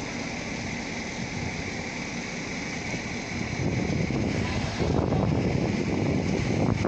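Blizzard wind buffeting the microphone in a low rumble, gusting harder about halfway through.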